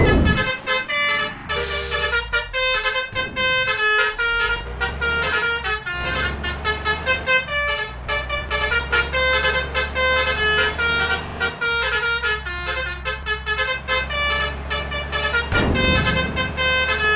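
Telolet basuri multi-trumpet air horn playing a rapid melody of short toots over a steady low engine rumble.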